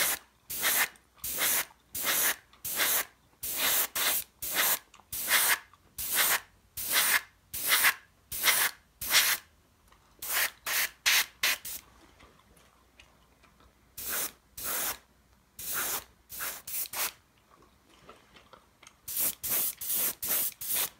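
Airbrush spraying paint in many short hissing bursts, about two a second, in several runs with short pauses between them: matte black being misted over the model locomotive's weathering to tone it down.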